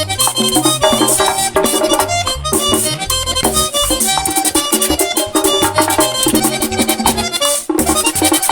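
Merengue típico band playing an instrumental passage: accordion melody over a bass line, with a fast steady beat of drum and scraped percussion.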